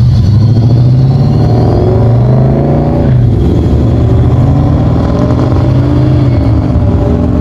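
Loud car engines accelerating away one after another, the engine note climbing, dropping sharply about three seconds in, then climbing again.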